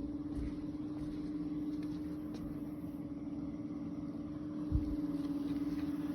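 A steady machine hum, one pitch held level over a low rumble, with a single dull thump near the end.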